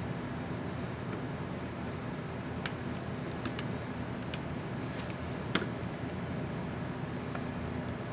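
A few small sharp clicks from a laptop keycap and its plastic clips being handled on an Asus X550C keyboard, the loudest about two and a half and five and a half seconds in, over a steady low hum.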